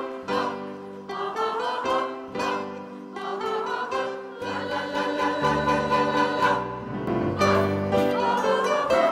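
Mixed choir of men and women singing held chords over instrumental accompaniment, the chords changing every second or two.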